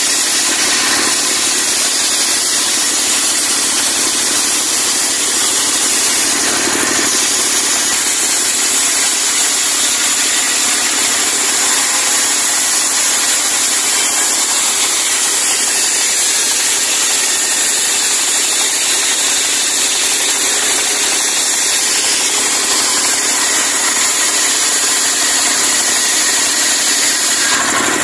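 Diesel-powered circular saw ripping a timber beam lengthwise: the engine runs steadily under load while the blade cuts with a constant high-pitched whine.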